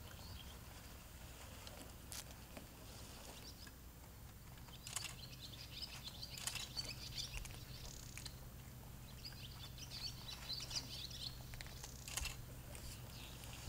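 Small birds twittering faintly in two spells of chirps, over a steady low hum, with a few sharp clicks.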